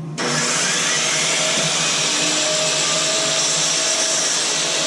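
Corded electric power saw switching on suddenly and running steadily as it cuts a wooden board.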